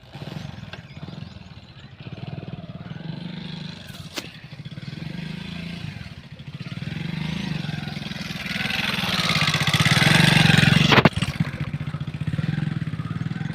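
A motor vehicle's engine running steadily, growing louder over several seconds, then dropping suddenly with a click about eleven seconds in and running on more quietly.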